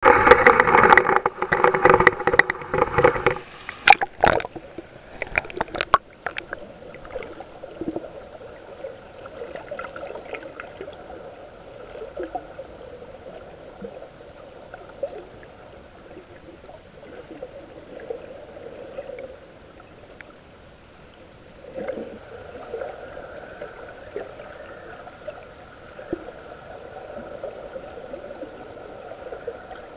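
Sea water splashing against a GoPro Hero 3+ housing at the surface for the first few seconds. A few sharp knocks follow as the camera goes under. Then steady, muffled underwater water noise is heard through the waterproof housing.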